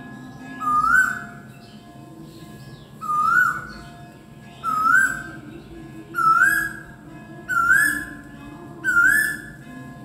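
Male Asian koel singing: a loud, rising two-part whistled 'ko-el', repeated six times, the notes coming a little closer together toward the end.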